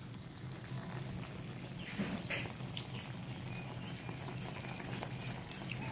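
A pan of pork steak braising in soy sauce, bubbling and sizzling faintly over a steady low hum. There is a brief knock about two seconds in.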